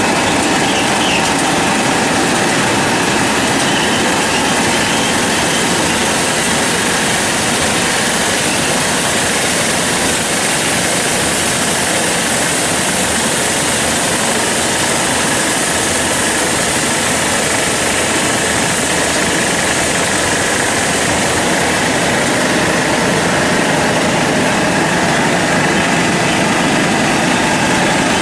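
Air-bubble vegetable washing machine running: a steady, unchanging mechanical drone from its motor and air blower.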